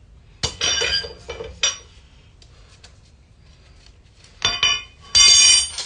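A screwdriver prying at the centre cap of a 2015 Chevy Silverado alloy wheel, working the cap loose. Metal scrapes and clinks in quick bursts: a cluster about half a second in, then louder scraping with a brief metallic ring near the end.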